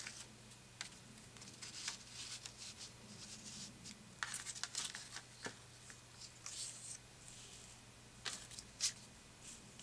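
Strips of patterned scrapbook paper being picked up, slid and laid onto a paper layout: scattered soft rustles and light scrapes of paper on paper, with a few louder brushes about four seconds in and again near the end.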